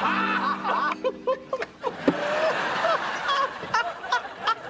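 Sitcom audience laughter, fullest over the first second and a half and thinning out after about two seconds into a few short scattered chuckles, with a steady low tone under the opening.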